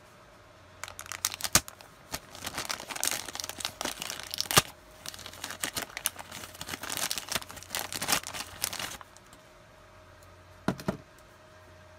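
Thin clear plastic bag crinkling and tearing in irregular handling for about eight seconds as it is opened and a plastic model-kit sprue is taken out, then it stops. A couple of short knocks follow near the end.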